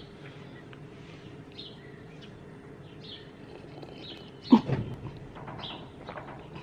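A small bird chirps briefly every second or so. About four and a half seconds in, a sip of coffee goes down the wrong way and a woman coughs and sputters for a couple of seconds.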